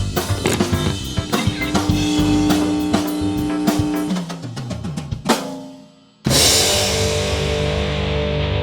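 Upbeat rock music with a drum kit and guitar. About six seconds in it drops out almost to silence for a moment, then a held guitar chord rings out.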